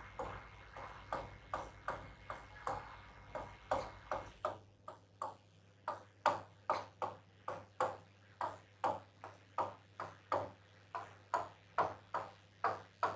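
Stylus tapping and scraping on an interactive touchscreen board as plus signs are drawn, a short sharp stroke about twice a second. A low hum sounds underneath and cuts out about four seconds in.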